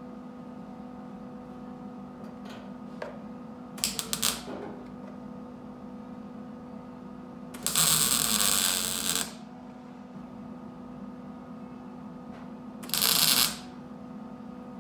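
Wire-feed welder plug-welding the drilled-out spot-weld holes in a car's sheet-metal body panels: a few short stuttering blips about four seconds in, one longer weld of about a second and a half around eight seconds, and a short weld near the end, over a steady electrical hum.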